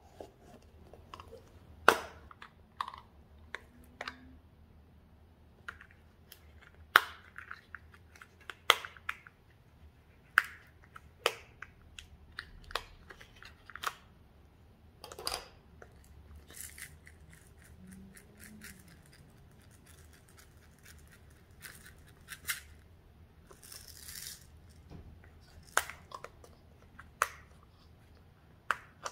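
Hard plastic cosmetic cases being handled: irregular sharp clicks and taps as a makeup compact and a hinged multi-compartment glitter case are opened, closed and tapped, with a brief hiss about three-quarters of the way through.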